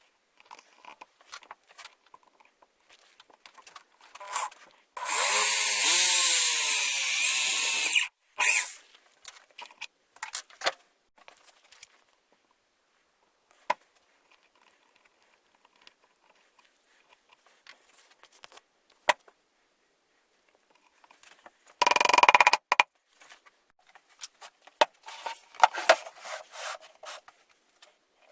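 Power drill running into wood for about three seconds, its pitch wavering under load, then a second, shorter burst of the drill about a quarter minute later. Between the two runs are scattered knocks and rustles as the workpiece and tools are handled.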